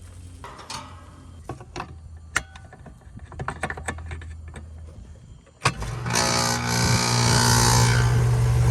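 Goodman heat pump outdoor unit starting up: a few light clicks and knocks, then a sharp click a little past halfway and the compressor and fan come on with a loud steady hum and a burst of hiss that eases after about two seconds. The compressor is starting on its newly fitted run capacitor, after the old capacitor had shorted out and left it not running.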